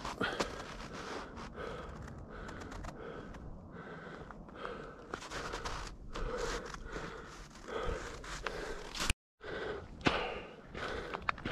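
A hiker's quick, rhythmic breathing while climbing, with footsteps on snow and rock. The sound cuts out briefly near the end, then picks up again.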